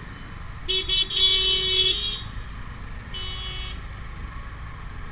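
Vehicle horn honking in traffic: two quick taps that run straight into a held blast of over a second, then a shorter honk about a second later, over the steady low rumble of a motorcycle ride.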